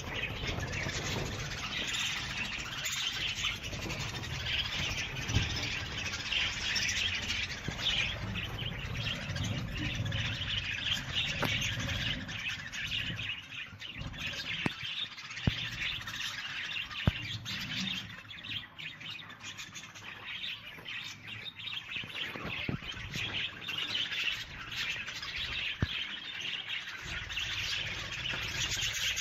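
Many birds chirping and calling at once in a dense, continuous chorus, with a couple of sharp clicks around the middle.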